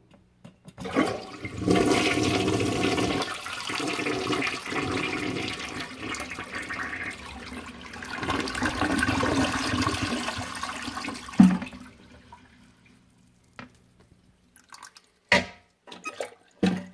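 Toilet flushing: a loud rush of water that runs for about ten seconds, then cuts off. A few short knocks follow near the end.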